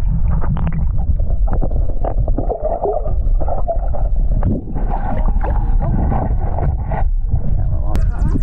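Muffled, irregular rumbling and gurgling of water heard through a submerged underwater camera as a hooked fish is played beside the boat.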